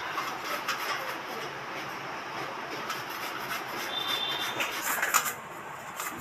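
Raw pumpkin being grated on a stainless steel grater over a steel plate: rhythmic rasping strokes, several a second, as the flesh is rubbed down the blades.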